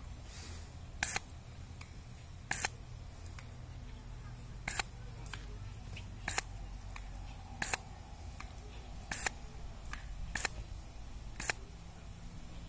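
A garden hose spray nozzle squirting about eight short bursts of water, one every second or two.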